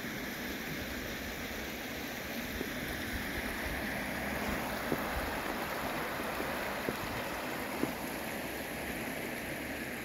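Shallow creek water running over rocks in a steady rush, with a few faint ticks in the second half.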